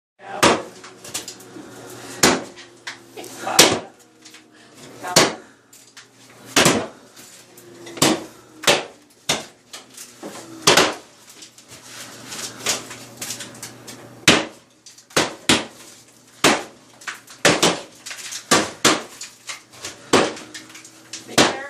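Hammer blows knocking at a wall being demolished: sharp, irregular strikes at about one a second.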